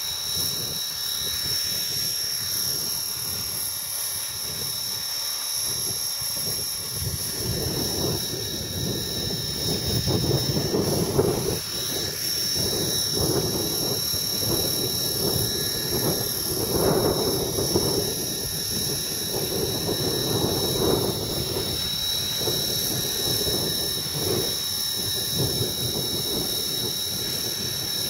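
Electric Align T-Rex 450 RC helicopter hovering, its motor and rotors giving a steady high-pitched whine. From about a quarter of the way in, strong gusts of wind buffet the microphone in irregular rushes.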